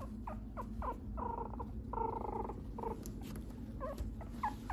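Young mixed-breed puppy whining and squeaking: a few short high squeaks that fall in pitch, then two longer whines about a second and two seconds in, and quick wavering squeaks near the end.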